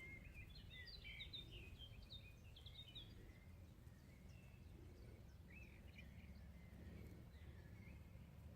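Faint birdsong: small birds twittering in quick high chirps, busiest in the first three seconds and more scattered after, over a low steady rumble.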